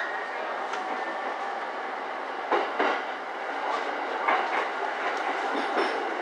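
JR East E231-series electric train running, its wheels clacking over rail joints, several clacks coming in quick pairs, over a steady running rumble heard from inside the front car.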